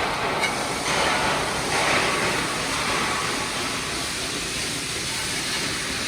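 TIG welding arc burning steadily: a loud, even hiss that starts abruptly just before and holds without a break.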